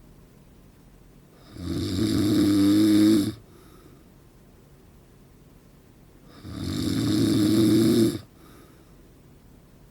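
A man snoring loudly in his sleep: two long snores about five seconds apart, each swelling for nearly two seconds and then cutting off abruptly, with quiet breathing between.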